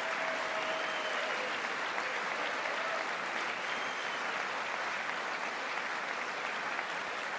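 Large audience applauding steadily, with a few faint cheers.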